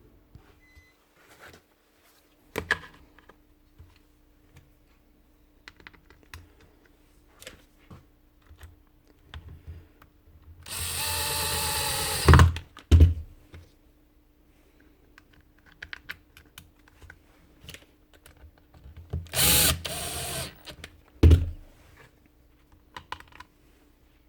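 A handheld power-tool motor runs in two short bursts of about a second and a half each, about eleven seconds and nineteen seconds in. A sharp knock follows each run, and quieter clicks and knocks of parts being handled come in between.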